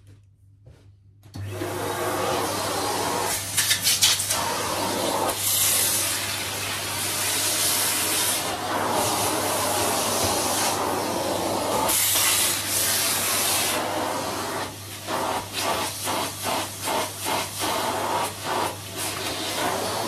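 A vacuum cleaner switches on about a second in and runs with its crevice tool, the suction noise shifting as the nozzle moves. Over the last few seconds the noise rises and dips about twice a second.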